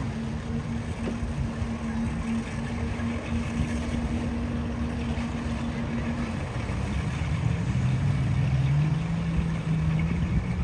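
A motor engine running steadily, then rising in pitch and getting louder from about seven seconds in, as it is revved or put under more throttle.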